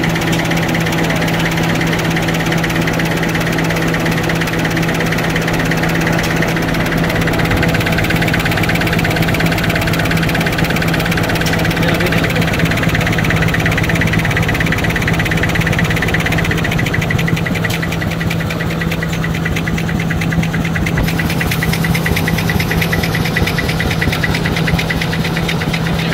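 Automatic 4-lane facial tissue folding machine running steadily: a constant low hum with a fast, even mechanical ticking that stands out more in the second half.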